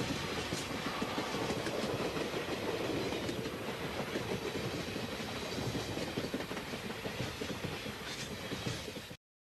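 Train running along the track: steady noise with no whistle sounding, cut off suddenly near the end.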